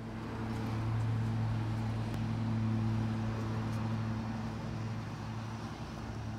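Truck engine idling steadily with a low, even hum.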